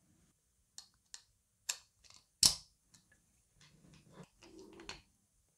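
Small sharp clicks and taps of small steel hardware and a screwdriver being handled against a 3D-printed plastic part, about five in the first three seconds with the loudest about two and a half seconds in, then softer clicking and handling noise near the end.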